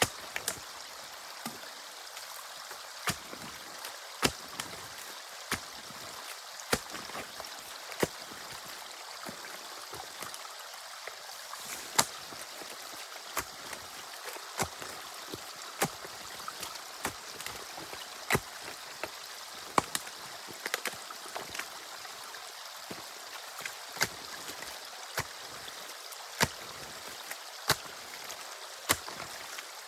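Water running through a drainage channel: a steady, even rush, with short sharp ticks over it about once a second.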